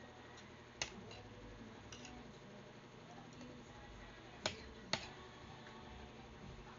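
A few sharp, brief clicks or taps over a faint steady background: one about a second in, a faint pair near two seconds, and two louder ones half a second apart about two-thirds of the way through.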